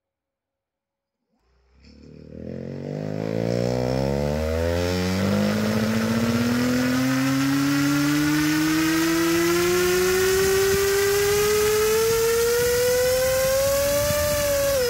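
2200 KV brushless outrunner motor driving a two-blade propeller, spinning up under throttle: it starts about a second and a half in, and its whine and propeller wash rise steadily in pitch up to about 15,000 RPM, then fall sharply at the very end as power is cut.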